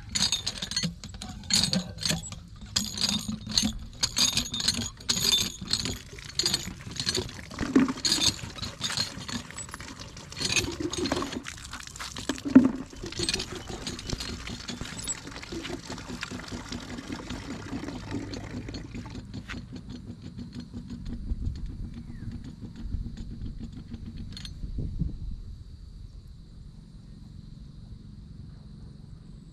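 Hand-operated lever water pump being worked, its handle and rod squeaking and clanking about twice a second with water gushing out, for roughly the first twelve seconds. Then water splashing for several seconds, dying away about twenty seconds in and leaving only a faint steady high hum.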